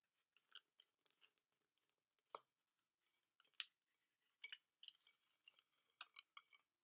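Paper price tags handled close to the microphone: faint, scattered crinkles and small ticks, with sharper clicks a little over two seconds in and again near the middle.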